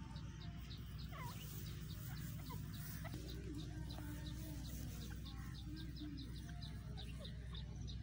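Grey francolin giving soft, low clucking calls while it forages, with a few short chirps. A steady high ticking, about four a second, runs underneath.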